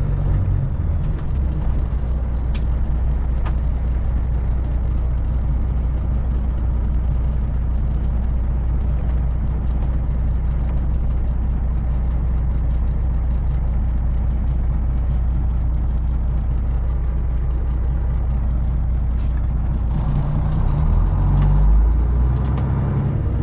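Semi truck's diesel engine running steadily, heard from inside the cab; the engine note shifts and grows a little louder near the end. A brief high squeak is heard a couple of seconds in.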